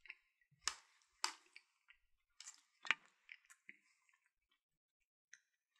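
A person quietly chewing a mouthful of thick instant chilli, with several short wet mouth clicks in the first few seconds.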